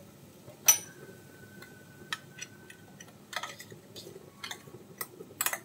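A spoon clicking against a bowl and the rim of a pan as ground paste is spooned into cooked cauliflower: a few sharp, separate clinks, the first the loudest.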